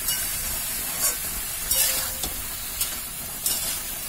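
Spiny gourd (kakrol), potato and tomato pieces frying in oil with a spice paste in a wok, sizzling steadily while a spatula stirs them and scrapes the pan several times. The masala is being fried through before water is added.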